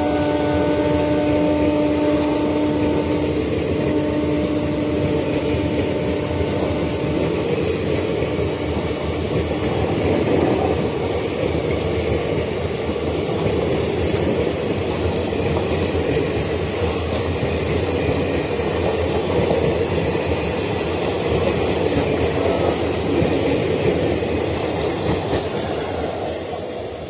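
Express passenger train of blue Indian Railways coaches passing close at full speed, the wheels on the rails making a steady loud rush with clickety-clack. A train horn sounds at the start and stops about three seconds in. The noise falls away near the end as the last coach passes.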